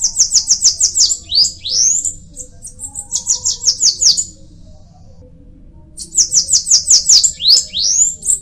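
Bananaquit singing twice. Each song is a high, fast run of short descending notes broken by a couple of rising slurred notes. The first song starts right away and lasts about four seconds; the second begins about six seconds in.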